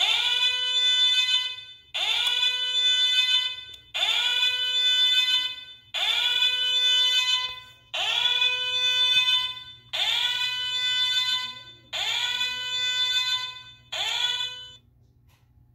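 Small speaker on a DIY motion-activated sound-module device playing an alarm-like tone through a relay. Each tone swoops up into a held note and fades, repeating every two seconds eight times, and the last one is cut short.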